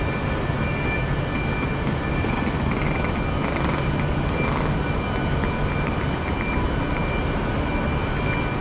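Steady hum and rumble of trains standing at the platforms of a large station, with a high, steady whine over it. A couple of faint, short hisses come around the middle.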